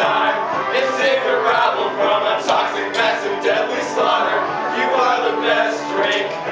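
Several young male voices singing together over a backing music track.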